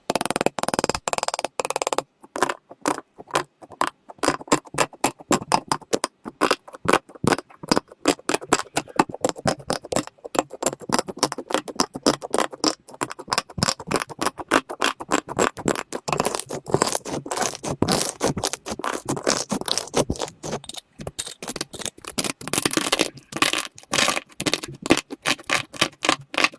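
A dense, irregular run of sharp clicks and crackles, several a second, with only brief gaps.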